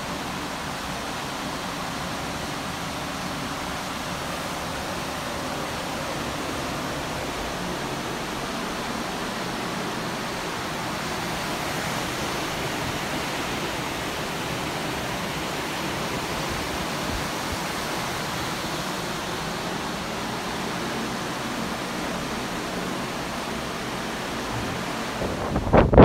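Steady rush of wind and churning wake water behind a moving cruise ship, with some wind on the microphone.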